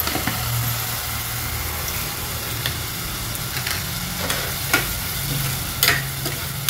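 Simmering tomato-onion masala sizzling steadily in an enamel pot on a gas stove, with a low hum underneath. In the second half a steel ladle stirs it, clinking sharply against the pot a few times.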